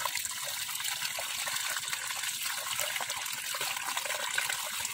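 Water pouring in a steady stream through a gap in a mud bank and splashing down into a woven bamboo basket full of small fish.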